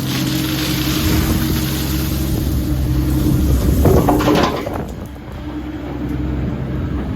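An engine running steadily at an even pitch, with a louder noisy burst about four seconds in.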